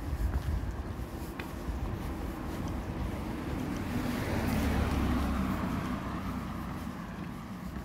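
A vehicle passing by with a noisy rumble that builds to its loudest a little past halfway and then fades away.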